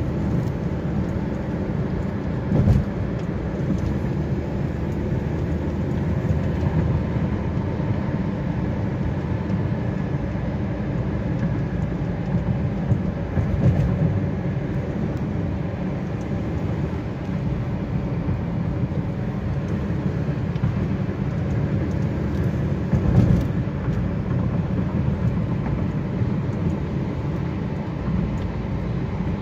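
Steady low rumble of a car driving at highway speed, heard from inside the cabin as tyre and engine noise, with a couple of brief louder thumps.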